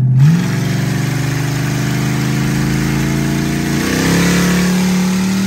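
LS V8 engine in a Ford Crown Victoria pulling hard under throttle, heard from inside the cabin. Its note jumps up just as the run starts, climbs slowly, then steps up in pitch again about four seconds in and holds, over a loud rush of noise.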